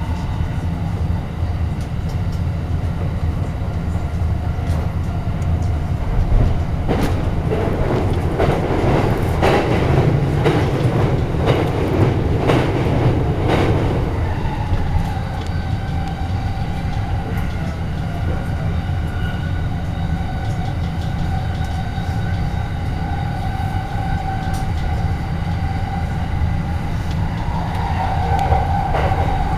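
Electric commuter train heard from inside the car while running: a constant low rumble, with a spell of clattering over rail joints or points in the first half. After that a steady whine sets in and holds, growing a little louder near the end.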